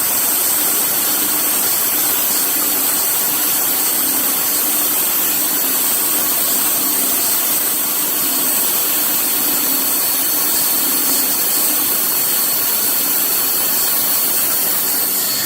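Haas TM-2P CNC vertical mill thread-milling 8-40 screw holes with a small thread mill: a steady, even hiss of spindle and cutting noise.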